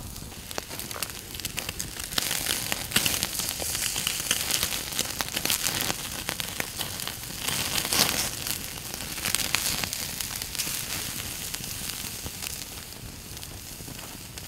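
Beef steak sizzling on a wire grill over a wood campfire, with the fire crackling. The sizzle grows louder about two seconds in and surges again around the middle, as the steak is turned over with a wooden spatula.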